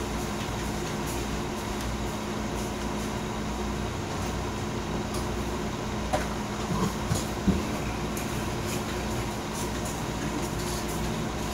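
Steady whir and hum of a Taramps HD 3000 car amplifier's cooling fan running with the amp powered up on the bench, with a few faint knocks around the middle.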